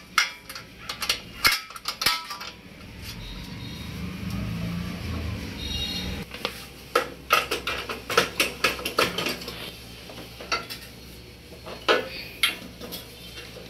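Steel ring spanner clinking against the silencer's mounting nut and bolt on a motorcycle exhaust, in a string of sharp metal clicks as the nut is worked loose. A low rumble rises and fades between about two and six seconds in.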